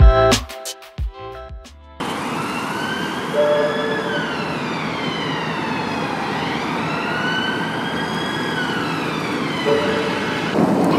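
A short music sting ends about two seconds in. Then an emergency vehicle siren wails, slowly rising and falling, over steady street traffic noise.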